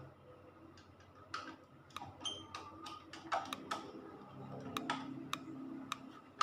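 Irregular small clicks and light metallic taps, some with a brief ring, from wire ends and a screwdriver being worked at miniature circuit breaker terminals in a sheet-metal panel box.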